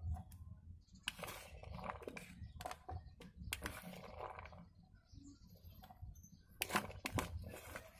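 Plastic spatula scraping sweet corn kernels out of a plastic bowl and dropping them into a blender jar: soft scrapes and light clicks, with two sharper clicks near the end.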